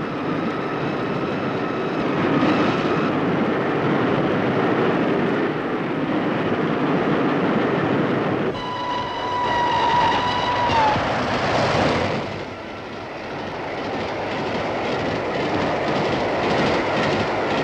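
Steam locomotive running with a steady rushing clatter. About eight seconds in comes a single whistle blast, held for about two seconds, that sags in pitch as it cuts off.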